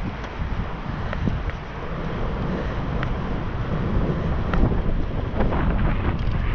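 Wind buffeting the microphone of a handlebar-mounted camera on a moving road bike, a steady rushing with low rumble, with a few light clicks.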